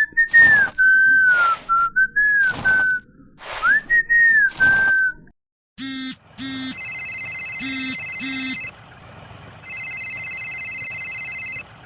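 A whistled tone that glides up and down, cut through by sharp clicks, for about five seconds. Then come short electronic beeps, a few at a time, and one longer held electronic tone near the end.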